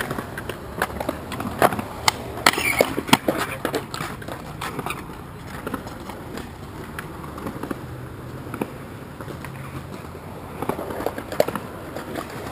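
Skateboard wheels rolling on rough concrete, with a run of sharp board clacks in the first few seconds and a few more near the end.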